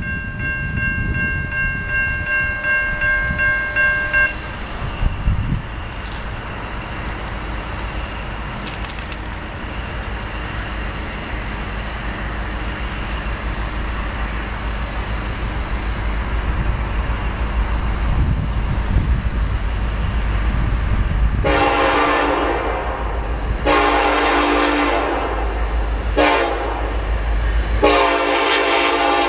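Approaching diesel locomotive consist rumbling louder and louder. Near the end its air horn, a Nathan K5LLA chime horn, sounds the grade-crossing signal: long, long, short, long. Early on a steady high tone sounds and stops about four seconds in.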